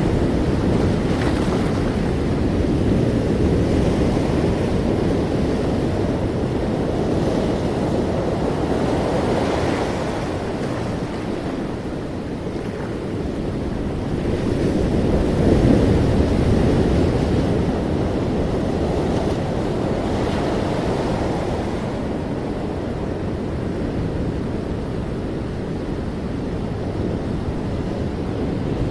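Ocean surf: a continuous wash of waves that slowly swells and eases, loudest around the middle.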